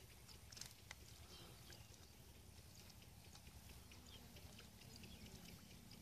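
Near silence: faint outdoor ambience with a low rumble and scattered faint high ticks, and a couple of soft clicks about a second in.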